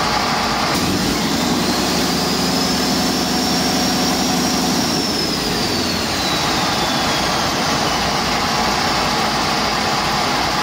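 2019 International A26 12.4-litre inline-six diesel on a test run: it is revved up about a second in, held for a few seconds, then drops back to idle. A high turbocharger whine climbs with the revs and slowly falls away after them as the turbo spools down.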